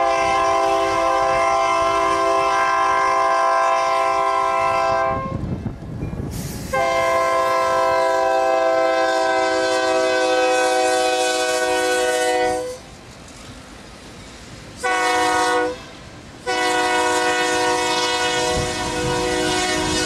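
Diesel locomotive air horn on an IAIS GP38-2 sounding the grade-crossing signal: two long blasts, a short one about fifteen seconds in, then a long one that carries on. Under and between the blasts is the low rumble of the train on the rails.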